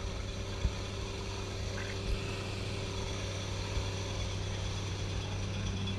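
Parasail tow boat running steadily below while its winch reels the rider in: a steady mechanical drone with a low hum and a faint whine, and a couple of faint knocks in the first few seconds.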